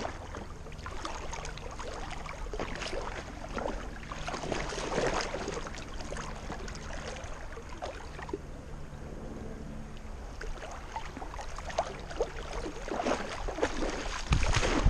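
An English setter swimming, heard close to the water from her back: water sloshing and splashing unevenly as her legs paddle. Near the end it gets louder, with heavy low thumps as she reaches the bank.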